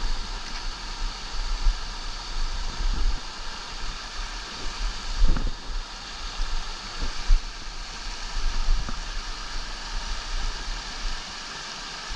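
Small mountain creek rushing over rocks in white-water cascades, a steady rush of water, with low rumbling buffets of wind on the microphone and a few thumps, the loudest about five and seven seconds in.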